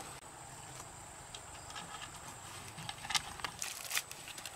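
Quiet outdoor background with a faint steady hiss and a few short, light clicks and taps that come more often in the second half.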